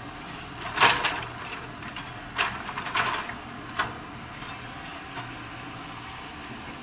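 Hydraulic excavator's demolition grapple knocking and clanking against steel framework and concrete debris: a loud cluster of clanks about a second in, more around two and a half to three seconds, and a single sharp knock near four seconds, over the machine's steady engine hum.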